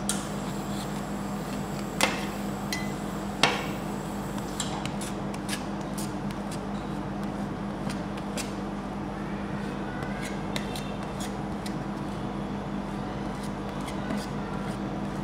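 Metal spatulas striking and scraping on a frozen steel cold plate as rolled ice cream mixture is chopped and then spread thin. Two sharp ringing clanks come about two and three and a half seconds in, followed by lighter scraping taps, over a steady low hum.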